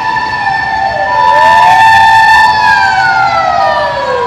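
Emergency vehicle sirens on a city street: a wailing siren sweeps up in pitch twice and then winds steadily down through the last second and a half, over a steadier high tone.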